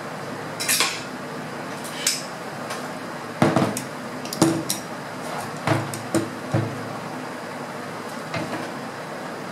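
Metal knocks and clanks, about eight in all and bunched between three and seven seconds in, as the stripped barrel and compression tube of a Hatsan break-barrel air rifle are set down and moved about on a hard table top.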